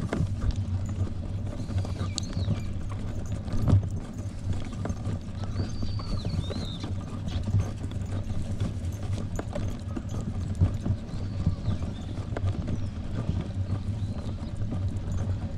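Footsteps and handling noise while walking along a paved path: a steady low rumble with irregular knocks and clatter, and a few faint high chirps about two and six seconds in.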